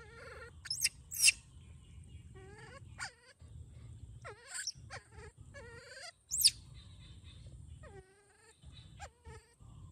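Baby macaque calling over and over: short whimpering coos that slide in pitch, broken by a few sharp high shrieks, the loudest near 1 s and again about 6.5 s in. These are the distress calls of a young monkey separated from its carer.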